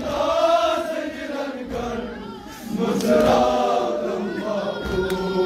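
Male voices chanting a Kashmiri nauha, a mourning elegy, in a slow melodic chant, with a brief lull about two seconds in.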